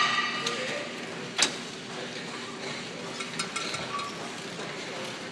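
Lying leg-curl weight-stack machine: one sharp metallic click about a second and a half in, then a few lighter clinks of the mechanism as the curls begin.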